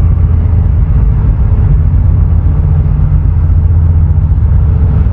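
Wind buffeting the microphone: a loud, steady low rumble with no other sound standing out.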